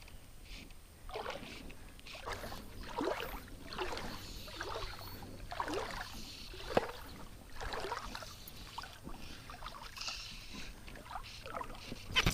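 Water swishing and splashing in irregular strokes about once a second beside a fishing kayak, with a sharp click about two-thirds of the way through and another near the end.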